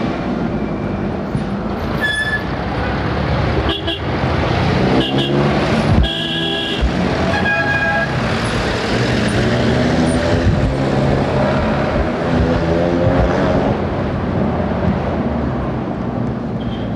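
Busy road traffic: engines running and revving, with vehicle horns tooting several short times in the first half, one toot held longer than the others.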